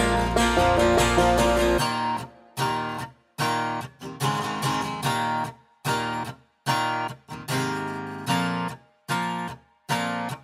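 Background music: strummed guitar, full and continuous for about two seconds, then short chords struck one at a time with brief silences between them.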